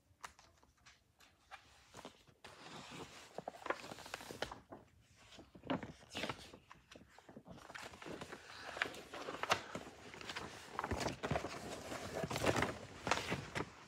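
A hardcover picture book handled and its pages turned close to the microphone: irregular rustling of paper and soft knocks, busier in the second half as the book's loose cover comes off.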